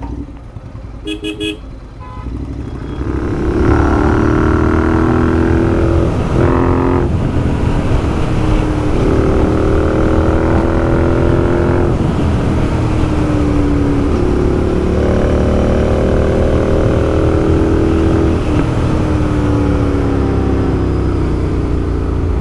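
Royal Enfield 650 parallel-twin motorcycle pulling away and accelerating through the gears, its pitch climbing in each gear and dropping at each shift, then running on at speed, heard from the rider's seat over low wind rumble. A few short beeps sound about a second in.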